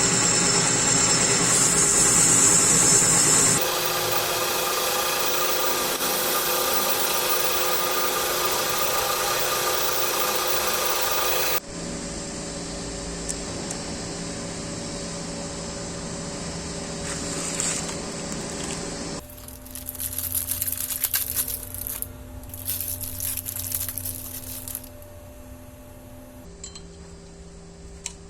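Workshop power tools running in several short cuts: steady machine running with fixed tones at first, then irregular scraping and rubbing passes, ending on a quieter steady hum.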